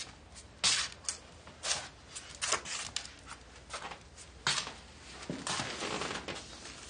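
Footsteps of shoes and leather boots on a wooden floor: slow, uneven steps.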